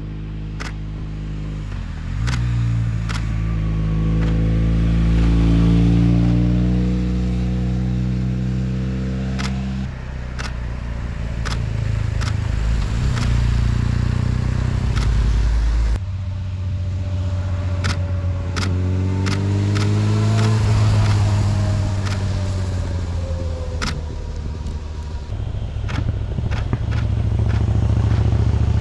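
Motor vehicles passing one after another, each engine note rising as it comes through and then falling away. Sharp clicks come in quick runs over the top, the shutter of the camera that carries the recorder firing bursts.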